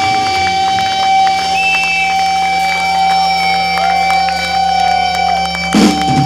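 Live metal band's electric guitars holding a sustained feedback drone: a steady high tone over a low hum, with a few short sliding notes. Near the end the full band crashes back in with a loud hit.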